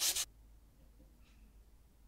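Abrasive paper rubbed by hand over a steel axe head: quick back-and-forth sanding strokes that stop suddenly a quarter of a second in.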